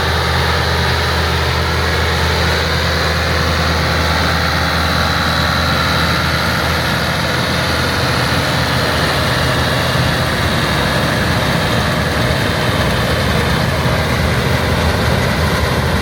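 International Harvester 684 tractor and IH 82 pull-type combine running together: a steady engine drone with the hum of the machinery over it, unchanging throughout.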